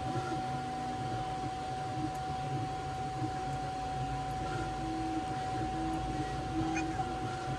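Steady machine hum and whir with one constant whine, typical of the Creality K1 Max 3D printer's fans running. About halfway through come a few faint short tones as the print head is pushed along its rods by hand.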